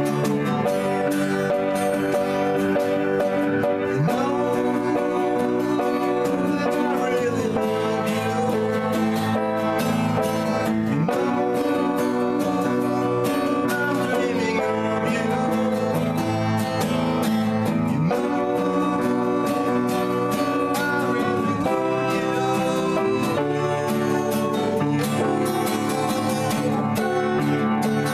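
Acoustic guitar strummed steadily under a man and a woman singing a song together.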